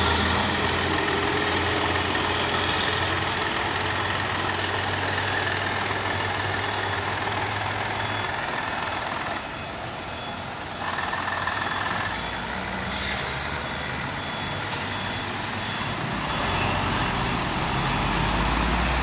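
Heavy truck diesel engines running steadily on a steep hill climb, with a sharp burst of air-brake hiss about two-thirds of the way through and a faint repeating high beep in the background.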